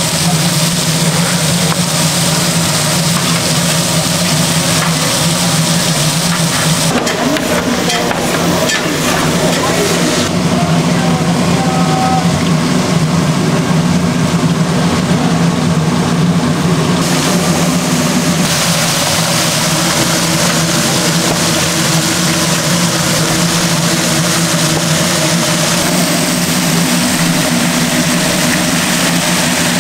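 Busy fish-grilling stall ambience: a steady low machine hum under a dense hiss, with people's voices in the background. The hiss thins for several seconds in the middle.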